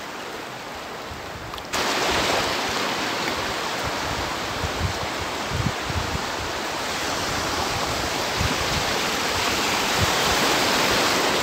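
Steady rushing noise of wind and small sea waves lapping, with wind buffeting the microphone in irregular low thumps. The noise jumps abruptly louder about two seconds in.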